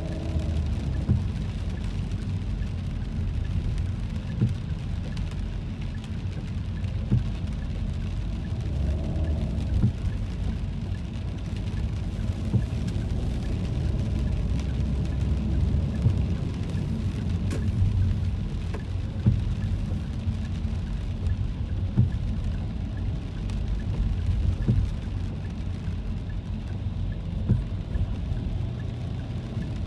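Rain hitting a moving car's windshield and body, heard from inside the cabin as scattered irregular ticks over the steady low rumble of the car driving.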